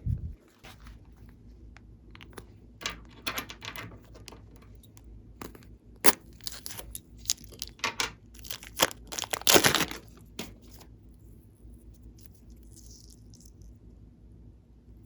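Glossy slime being mixed and squished, making irregular sticky crackles and pops that are loudest about ten seconds in. A dull thump comes at the very start.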